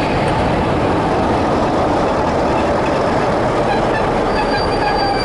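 Train rolling into a station platform: a steady rumble of wheels on rail, with thin, high squeals from the wheels or brakes starting about four seconds in as it slows.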